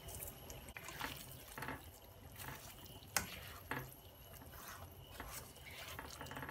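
A spatula stirring cooked chicken pieces and sliced onions in a frying pan: faint scattered clicks and soft wet sounds, with one sharper tap of the spatula on the pan about three seconds in.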